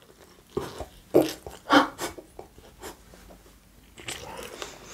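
A woman laughing with a mouthful of pizza, in a few short muffled bursts in the first two seconds, with soft chewing sounds around them and a softer stretch near the end.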